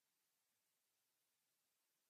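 Near silence: the sound track is essentially blank.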